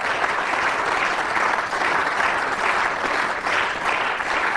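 Steady applause from many members of a parliament chamber, answering a speaker's point.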